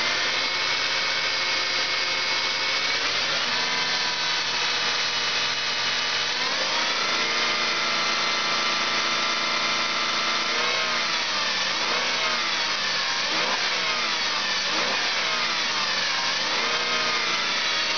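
2002 Chrysler Concorde's V6 engine running during a used-engine test, revved up and down: it rises in pitch about three seconds in and again around seven, drops back near eleven, then rises and falls several quick times near the end.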